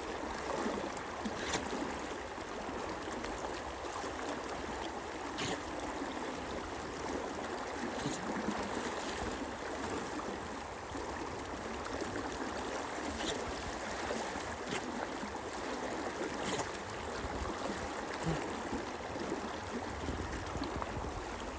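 River water flowing and rushing steadily, with a few faint, brief splashes now and then.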